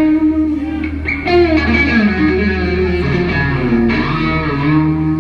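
Double-neck electric guitar played solo through a loud PA: a melodic line of sustained notes that bend up and down over a steady held low note, opening a rock song.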